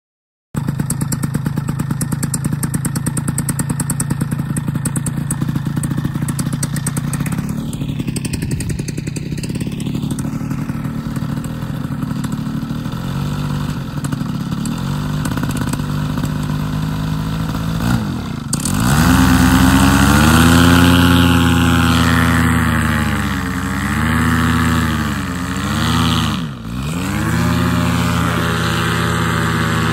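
Paramotor trike engine idling steadily, then throttled up about two-thirds of the way in and revved up and down several times as the pilot powers up to inflate the wing for takeoff.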